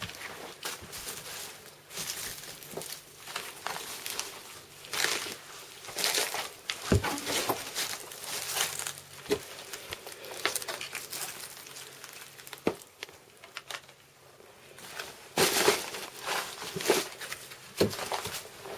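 Irregular rustling and crinkling, with a few sharp clicks or snaps scattered through.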